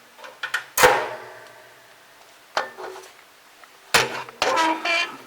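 Metal clanking during hands-on work on a refrigerator: a sharp clank about a second in that rings on for about a second, a few lighter knocks, then a louder clatter with ringing near the end.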